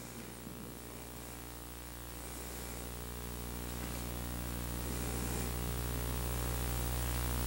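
Steady electrical mains hum with hiss from the sound system, growing gradually louder.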